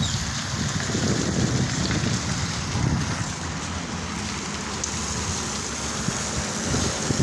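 Fountain water splashing in a steady wash, with wind buffeting the microphone.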